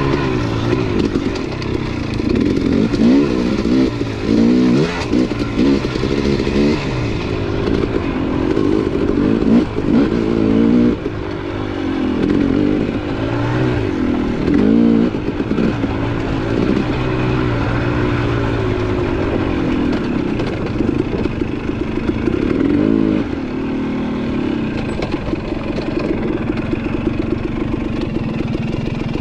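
KTM 250 dirt bike engine working through rough singletrack, its pitch rising and falling every second or two as the throttle is opened and rolled off. Toward the end it settles to a steadier, lower note as the bike slows.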